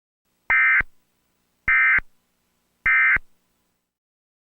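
Emergency Alert System end-of-message data bursts: three short, identical shrill digital screeches, about a second and a bit apart, marking the end of the tornado-warning alert.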